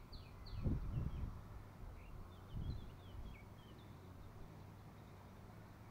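Small birds chirping in short, quick falling notes through the first half, with a few low dull thumps about a second in and again a little before three seconds.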